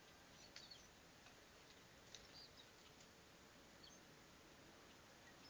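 Near silence: faint outdoor hiss with a few scattered, faint, short high chirps or ticks.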